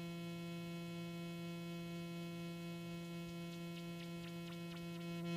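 Doepfer Dark Energy analog synthesizer holding a steady, buzzy square-wave tone. About three and a half seconds in, the LFO's frequency modulation starts to come in as faint quick ticks, about four a second, growing stronger over the tone.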